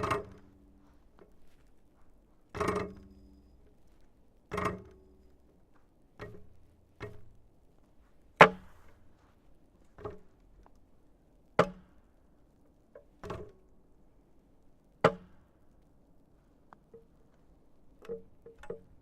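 Metal outdoor exercise machine struck by hand, about ten knocks at intervals of one and a half to two seconds. The first few leave a short ringing hum; the sharpest, loudest knocks come in the middle, and a few lighter taps follow near the end.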